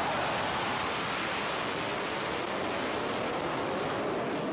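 A steady, rushing roar from six US Navy F/A-18 Hornet jets flying overhead in formation.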